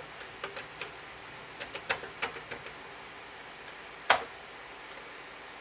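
Keys of a Commodore 64 keyboard clicking as they are pressed: several scattered keystrokes in the first two or three seconds, then one louder click about four seconds in.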